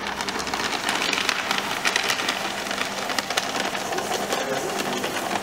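GBC ShredMaster Auto+ 60X cross-cut paper shredder running with a steady motor hum while its cutters shred a sheet of paper fed into the top slot, giving a dense crackling rattle.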